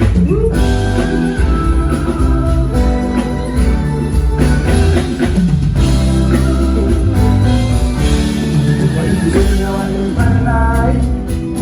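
Live band playing a loud instrumental passage: heavy bass, drums and sustained chords.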